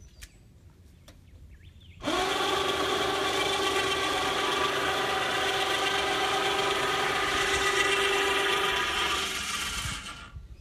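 Electric motor of a boat-mounted wheelchair lift running steadily, lowering the chair into the boat. It starts suddenly about two seconds in, holds one steady hum with a hiss, and stops near the end.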